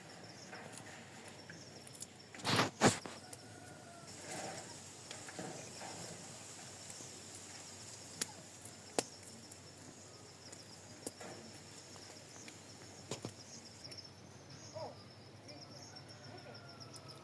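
Insects chirping steadily in a high, pulsing trill. A loud short rustling burst comes about two and a half seconds in, and a few sharp clicks or knocks follow now and then.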